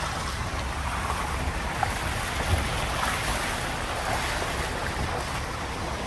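Open Maruti Gypsy safari jeep driving along a jungle track: a steady low rumble from the engine and tyres, with wind rushing over the microphone.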